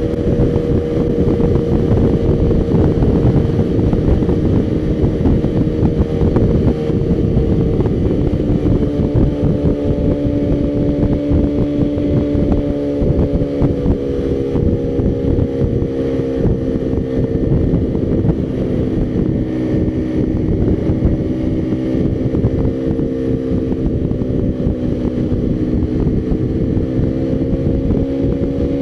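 Motorcycle engine running at a steady cruise, with wind rushing over the microphone. The engine note sags a little midway and climbs again near the end.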